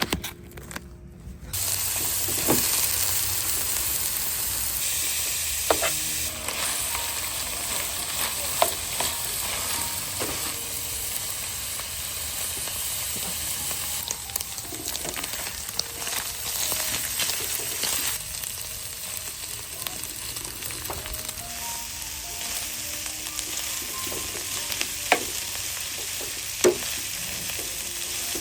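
Food sizzling in a hot frying pan, starting about a second and a half in and holding steady, with occasional clicks of a utensil stirring it against the pan.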